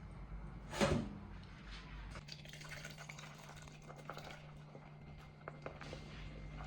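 Water dripping and trickling during kitchen work, with small scattered clinks and one louder burst of sound about a second in.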